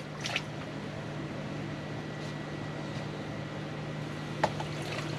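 Steady low mechanical hum, with one faint click about four and a half seconds in.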